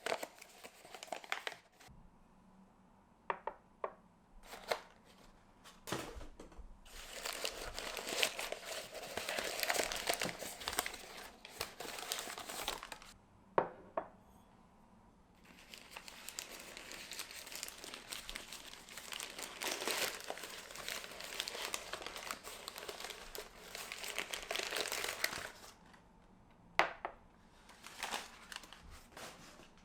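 Packaging crinkling and rustling as a parcel is unwrapped, in two long stretches, with a few sharp clicks and taps in between.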